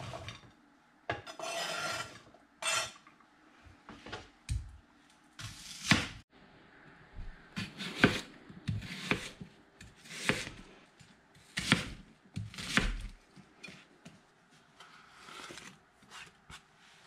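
Kitchen knife working on a cutting board: first a scrape as cubed onion is pushed off the board, then a series of sharp knocks as a red onion is sliced, the blade hitting the board about once every second or so.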